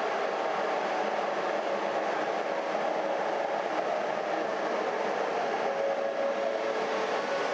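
Passenger coaches hauled by an SJ Rc6 electric locomotive rolling slowly past: a steady noise of wheels on rail. A thin, steady tone comes in about two-thirds of the way through.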